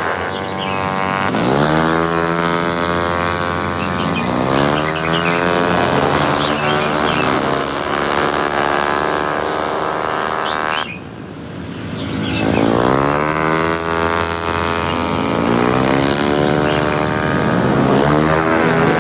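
Race car engines revving hard, their pitch climbing again and again as the cars accelerate. The sound drops sharply a little past halfway, then builds again.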